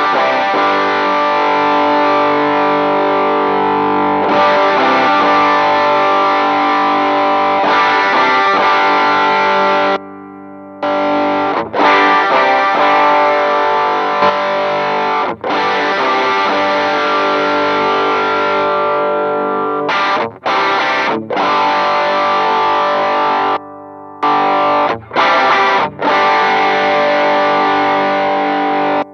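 Electric guitar played through Demonfx overdrive pedals, the DualGun (a King Tone Duellist clone) and the Prince of Sound (an Analogman Prince of Tone clone), giving a distorted, overdriven tone. Ringing chords are cut short about ten seconds in and several more times in the last third.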